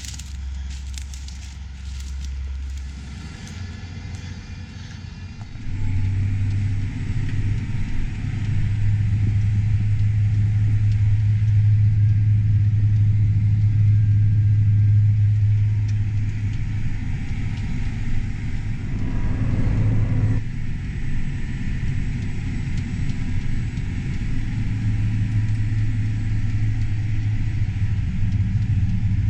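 Farm tractor's diesel engine running steadily, its note stepping up and getting louder about six seconds in as it works.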